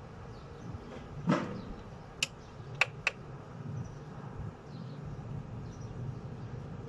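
Outdoor ambience from a window overlooking a car park: a steady low hum of distant traffic and faint high bird chirps. About a second in there is a short loud rushing sound, followed by three sharp clicks.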